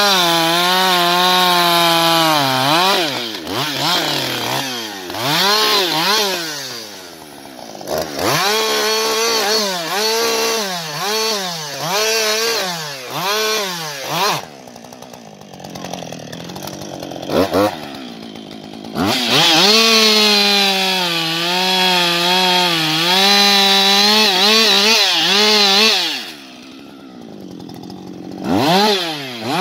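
Husqvarna 560XP II single-cylinder two-stroke chainsaw cutting wood. It runs at full throttle, then is revved up and down again and again, drops to idle around the middle, and runs steadily at full throttle for several seconds more. It falls back to idle and revs up again near the end.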